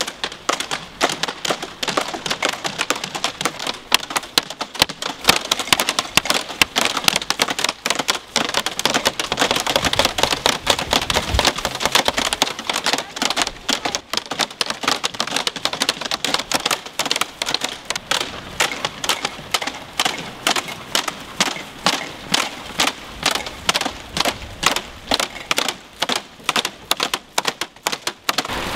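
Plastic-waste costumes crackling and clicking as they are moved, a dense rustle of crisp plastic that settles into a regular beat of about three clicks a second in the last third.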